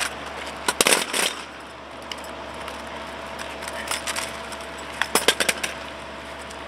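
Drill rifles being slapped, caught and clacked in a drill-team rifle routine: a sharp clack at the start, a quick cluster about a second in, and a rapid run of clacks around five seconds in.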